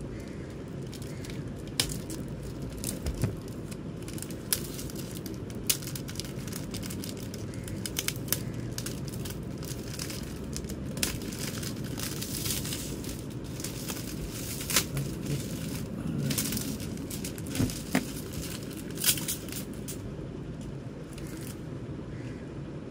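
Clear plastic wrapping crinkling and tearing as it is cut with a box cutter and pulled off a stack of CD cases, with scattered sharp crackles and clicks.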